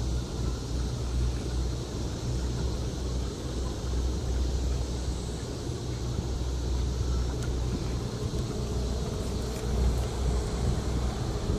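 Outdoor wind buffeting the microphone in uneven low rumbling gusts, over a faint steady high hiss.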